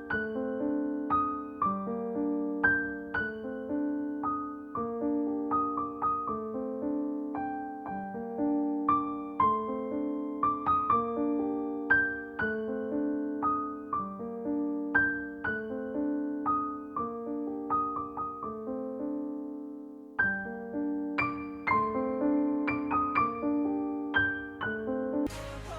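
Gentle solo piano music: slow, soft notes and chords struck one after another, each ringing out. Near the end a louder, fuller sound comes in.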